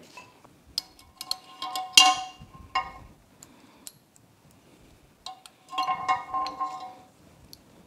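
Metal-on-metal clinks and taps with a short ringing tone, as a thin steel rod and a just-removed needle bearing are handled against the outboard lower unit's metal parts. They come in two bunches, about a second in and again about five seconds in.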